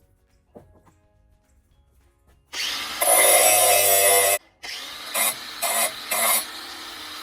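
A handheld power tool starts about two and a half seconds in and runs loud for about two seconds with a steady whine, stops briefly, then runs again more lightly with three short surges.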